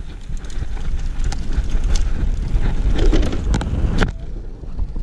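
Mountain bike being ridden, with wind rumbling on the microphone and a run of clicks and rattles from the bike. The loudest knock comes about four seconds in, after which the sound drops away.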